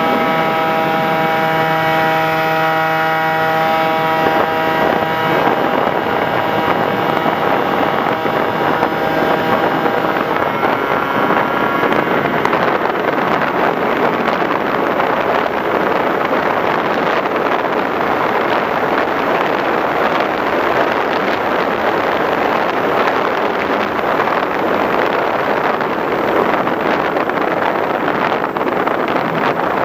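Radio-controlled FPV model aircraft in flight: an electric motor and propeller whine with several steady tones for the first few seconds, then mostly a loud, even rush of wind on the onboard microphone.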